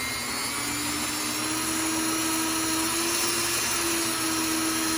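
Dremel 400 XPR rotary tool clamped in a lathe tool holder as a tool post grinder, running steadily at high speed with a constant whine that rises slightly in pitch about half a second in.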